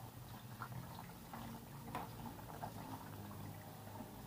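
Faint bubbling of boiling liquid, a low steady burble with a scattering of small clicks and taps.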